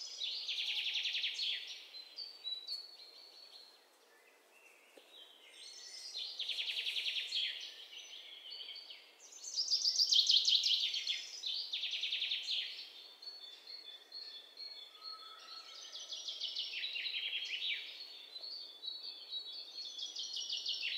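Birds chirping in repeated trilled bursts of a second or two, with short pauses between.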